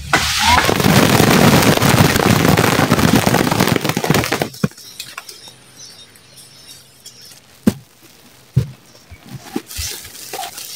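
A shower of ripe mulberries falling from the tree onto cloth sheets and sacks spread beneath it: a dense crackling patter that stops after about four and a half seconds. Then a few single berries drop with sharp taps.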